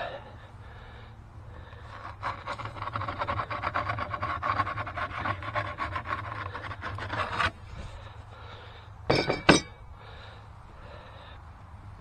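Wooden pizza peel scraping and rasping along the floor of a barrel wood-fired oven for about five seconds as the pizza is slid off it onto the oven floor. About nine seconds in come two brief, loud sounds.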